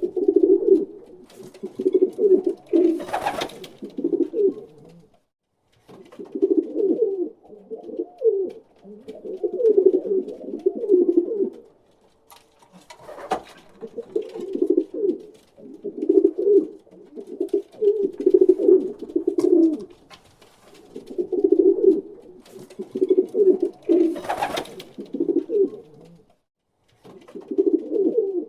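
Pigeon cooing over and over, in bouts of low, throaty coos separated by short pauses. Three times a brief noisy sound cuts in, about three, thirteen and twenty-four seconds in.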